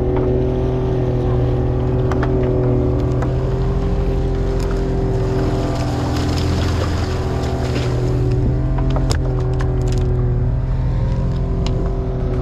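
A small fishing boat's motor running steadily under way, with water rushing and splashing along the hull, and a few sharp clicks.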